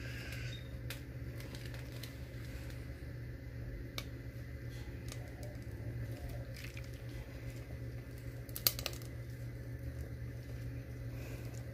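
Soft squishing of thick cream squeezed from a plastic bag onto mashed potato, over a steady low hum, with one sharp click about three quarters of the way through.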